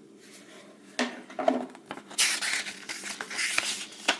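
Unboxing handling: a sharp click about a second in and a few light knocks, then about a second and a half of rustling packaging, with another click near the end.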